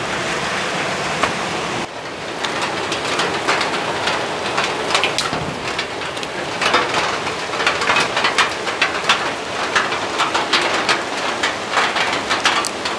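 Steady rain falling, with many sharp drop hits scattered through the hiss.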